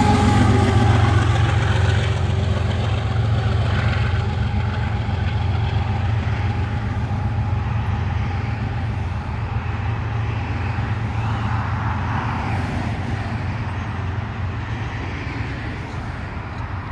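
GE ES44AH and ET44AH diesel locomotives of a loaded coal train running under power: a steady low rumble that slowly fades as they pull away.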